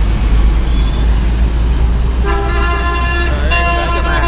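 Heavy road traffic rumbling close by, with a vehicle horn sounding about halfway in and holding for about two seconds, its pitch wavering near the end.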